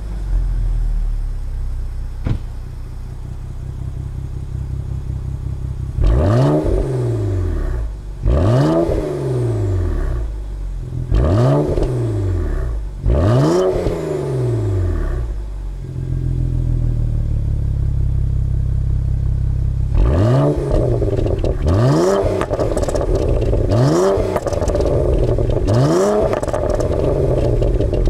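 Alpina B3 Biturbo's twin-turbo 3.0-litre straight-six, through its Akrapovic exhaust at the tailpipes, idling and being revved while standing. Four separate blips rise and fall, then it idles for a few seconds, then a quicker run of blips comes about every second and a half.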